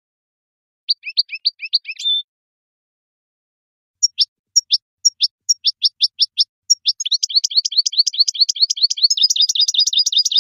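European goldfinch singing: a quick twittering phrase ending in a short buzzy note, a pause of about two seconds, then sharp separate notes that come faster and faster until they run together into a rapid twittering trill.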